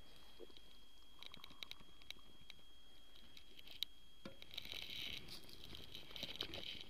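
Hot water poured in a thin stream from a camping kettle into a steel mug, faint.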